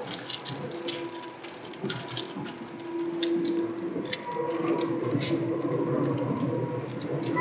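Seibu 2000 series electric train running, heard from inside the car: a steady hum from the traction equipment over the rumble of the wheels, with scattered clicks, growing louder about three seconds in.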